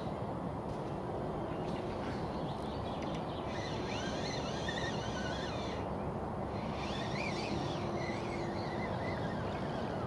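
A songbird singing two warbling phrases, the first about three and a half seconds in and the second about seven seconds in, over a steady low rushing noise.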